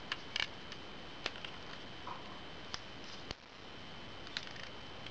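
Scattered small plastic clicks and taps from handling a Gorillapod tripod's head and quick-release plate while pressing its release button, over a faint steady high whine.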